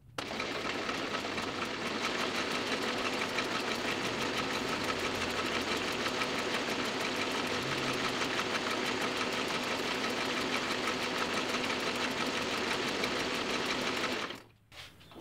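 Toko 810 small offset printing press running steadily, with a fast, even mechanical clatter. It cuts off suddenly near the end.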